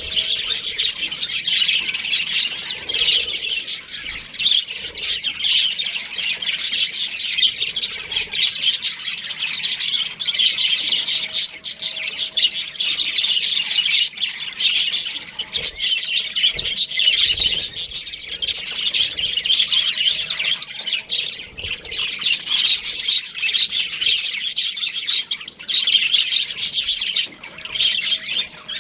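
A flock of budgerigars chirping and chattering together without a pause.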